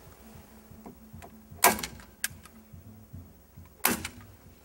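Hand staple gun firing staples through batten tape into a wooden upright: two sharp snaps about two seconds apart, with a lighter click between them.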